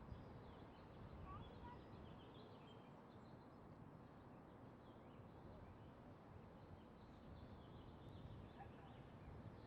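Faint ambient background: a steady low rumble and hiss with scattered faint bird chirps throughout.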